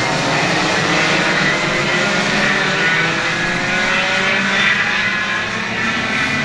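Several racing go-kart engines running at high revs, their pitches sliding up and down across one another as the karts accelerate and pass.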